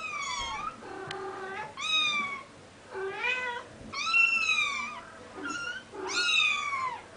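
Cat meows: about six high-pitched calls roughly a second apart, most falling in pitch at the end, with a short one just before the last.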